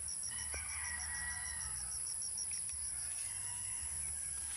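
A rooster crowing, one call of about a second soon after the start and a fainter one later, over a steady high insect drone.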